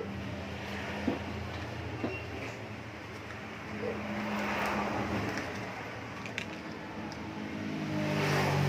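Motor vehicle traffic passing, with engines running as a steady low hum that swells about halfway through and again, louder, near the end. A few light clicks are scattered through it.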